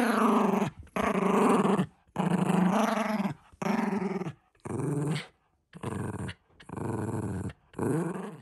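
A Shiba Inu growling in about eight long growls with short breaks between, loud and pitched. It is tugging on a plush toy held by a person's hand: play growling in a game of tug-of-war.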